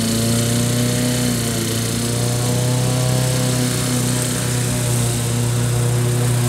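Wolf-Garten ride-on mower's engine running steadily under load while it cuts tall grass. Its pitch dips and recovers slightly as it works.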